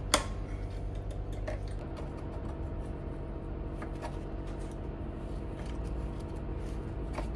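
Metal clicks from pliers and parts during motorcycle footpeg fitting: one sharp click just after the start, then a few fainter clicks and taps, over a steady low hum.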